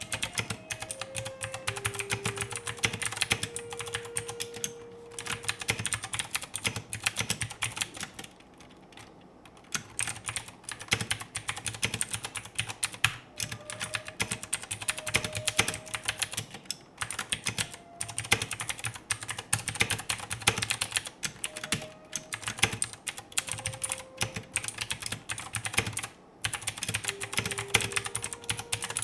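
Typing on an AKKO 3084 mechanical keyboard: fast, continuous runs of key clicks, with a pause of about two seconds roughly a third of the way in.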